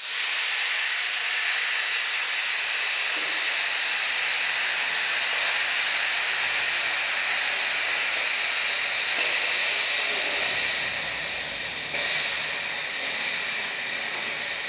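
Compressed air hissing steadily from the pneumatic mould of a three-station ball vulcanizing and marking press, the air being let out of the mould.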